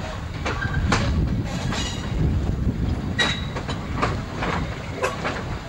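Passenger coach wheels rolling over rail joints and points, heard from an open coach window: a steady low rumble with irregular sharp clacks, and a brief wheel squeal about three seconds in.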